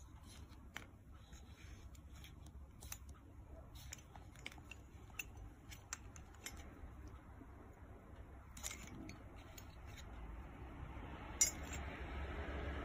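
Small stainless steel piping nozzles clicking and clinking lightly as they are picked up and handled, with one sharper click near the end and rustling of the piping bag rising over the last couple of seconds.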